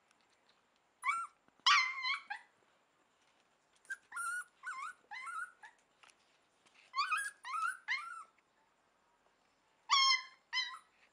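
Puppy yipping and whimpering in short, high-pitched calls that come in little clusters of two to four, with quiet pauses between.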